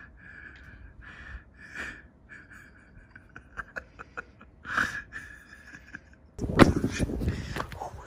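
Short, wheezy bursts of stifled breathing or laughter close to the microphone, repeating every half second or so. About six seconds in, loud rustling and handling noise take over as the camera is carried off.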